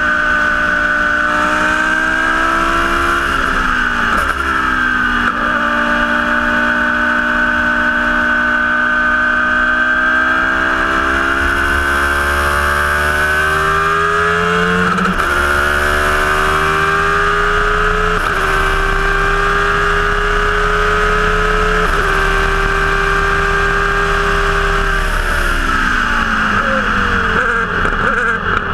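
Formula One car's engine heard onboard at full speed, its pitch climbing through the revs and stepping down sharply at each upshift, holding steady on the straight. Near the end the revs fall away with quick wobbles as the car slows and shifts down. Wind and tyre noise run underneath.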